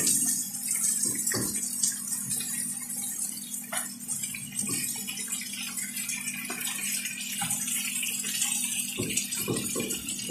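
Marinated chicken pieces and garlic sizzling in a frying pan, with scattered scrapes and clinks of a metal slotted spatula and fork stirring them against the pan. A steady low hum runs underneath.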